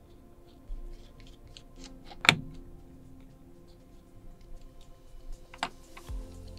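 Light clicks and ticks of small screws and a precision screwdriver being handled on an opened MacBook Pro's logic board and aluminium case as the IO board is secured, with one sharp click about two seconds in and another near the end.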